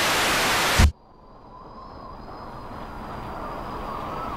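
Loud TV static hiss that cuts off suddenly just under a second in with a short low thump. It is followed by a faint noisy rumble with a thin steady whine that slowly fades up.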